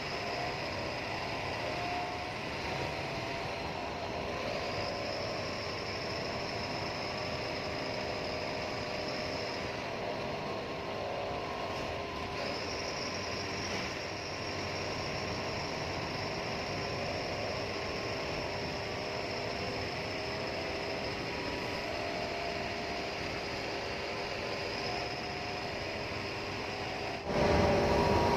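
A bus running on the road: steady engine and road noise with faint wavering whining tones, jumping suddenly louder near the end.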